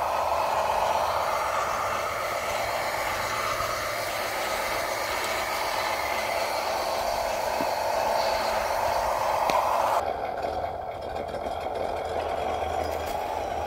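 Electric motors and geared drivetrains of RC scale crawler trucks whining and rattling steadily as they drive slowly; the sound changes about ten seconds in, losing its high hiss.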